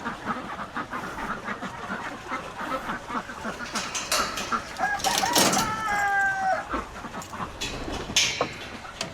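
A flock of chickens clucking and chattering as they come out of the coop, with one longer drawn-out call about five and a half seconds in.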